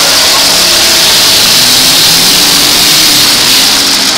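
Several demolition-derby pickup trucks' engines running and revving together, their pitches drifting up and down under a loud, steady wash of noise.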